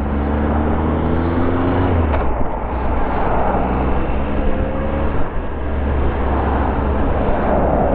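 Triumph Tiger Explorer 1200's three-cylinder engine pulling at road speed, with wind and road noise over the microphone. The engine note climbs, breaks off briefly about two seconds in, then climbs again.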